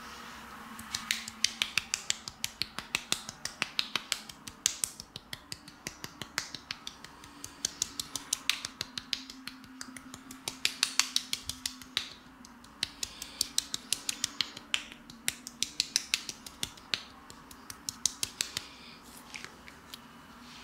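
Fingertips tapping and pressing on a cream-covered face during a facial massage: a run of sharp, wet clicks, several a second, in uneven bursts.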